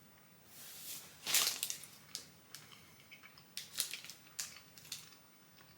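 A snack wrapper being torn open and crinkled as a dark chocolate marzipan log is unwrapped: a rising rip about a second in, then scattered crackles.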